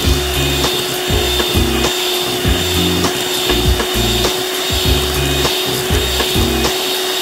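Electric hand mixer running steadily with an even motor whine, its wire beaters whipping thick cream.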